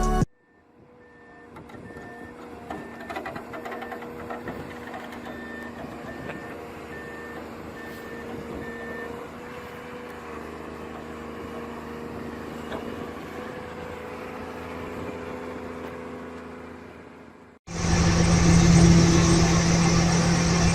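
Heavy construction machine's reversing alarm beeping in a steady repeating pattern over the machine's running engine; the beeping stops about halfway through. Near the end a louder diesel engine comes in suddenly.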